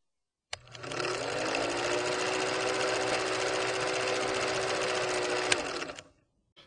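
Film projector sound effect: a click, then the projector running with a steady mechanical clatter and a faint hum, cutting off about six seconds in.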